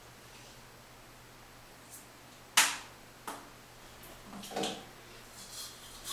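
Small objects handled at a bathroom sink: a sharp click about two and a half seconds in, the loudest sound, with lighter clicks before and after it and a brief patch of rustling handling noise a little later.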